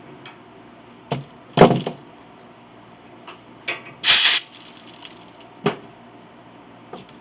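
Hand tools and small metal parts being handled and set down on a workbench: a handful of separate knocks and clicks, with a harsher, brighter clatter about four seconds in that is the loudest.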